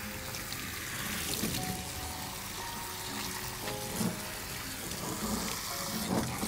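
Handheld shower sprayer running water over a puppy's soapy coat in a sink, rinsing out shampoo: a steady hiss of spray.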